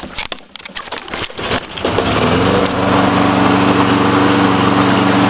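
Toro lawnmower's Briggs & Stratton engine starting: a few clicks and knocks, then it catches about two seconds in and runs steadily.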